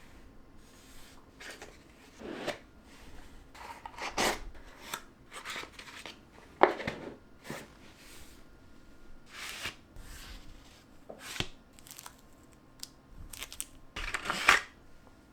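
Packaging being handled and opened by hand: irregular rustles, scrapes and clicks of cardboard and plastic, with a sharp click about seven seconds in and a longer rustle near the end.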